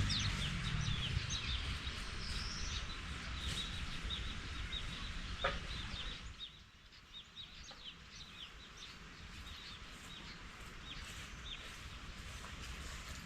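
Birds chirping in many short, high chirps, busiest in the first half and thinning out after about six seconds. There is a single sharp knock about five seconds in.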